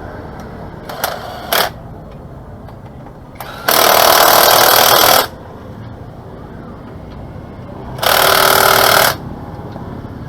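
Pneumatic impact wrench firing in bursts: two quick blips about a second in, then a burst of about a second and a half, and a shorter one of about a second near the end.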